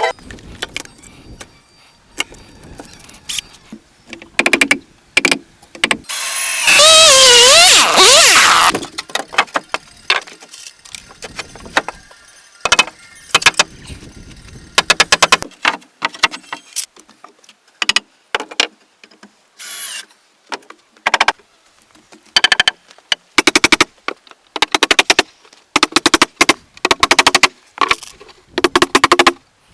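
Work sounds from a cabin restoration, sped up: clusters of short knocks and clacks, and a loud power-tool whine with a wavering pitch lasting about two seconds, roughly a quarter of the way in.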